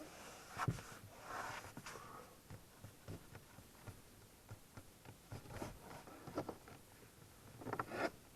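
Irregular small clicks, taps and rubbing of hands pressing a silicone seal strip into the gap between the windshield and the dashboard. There is a longer rustle about a second and a half in and a cluster of sharper knocks near the end.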